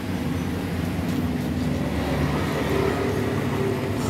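Steady rumble of road traffic passing on a busy main road.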